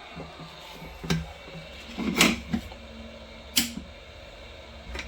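A few sharp clicks and knocks with a brief scrape about two seconds in, the sound of small objects being handled and set down on a workbench.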